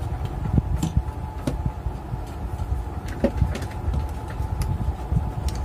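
Scattered light clicks and taps of hand tools and wiring being handled, coming at irregular moments over a steady low rumble.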